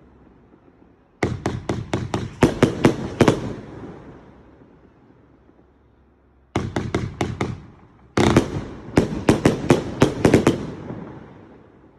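TOP 167 'Manado Lovers' 457-shot fireworks cake firing its 0.5- and 1.2-inch tubes in rapid volleys of sharp bangs: one volley about a second in, then two more from about six and a half seconds, each trailing off in echo between volleys.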